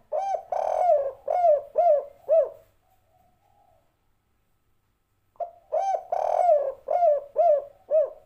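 Spotted dove cooing, the 'derkuku' call of the type keepers call 'kuk 3': twice, about five seconds apart. Each call is a short note, a longer drawn-out coo, then three short 'kuk' notes.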